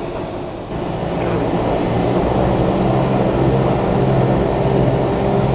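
Jet aircraft engines running at taxi power heard across the airfield: a steady rumble with a low hum, briefly dipping and then swelling back in about a second in.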